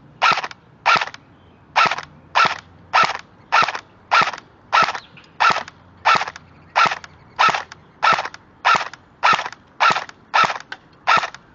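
M4 airsoft rifle firing about eighteen single shots at a steady pace, roughly one every two-thirds of a second, its BBs hitting the back of a first-generation iPod.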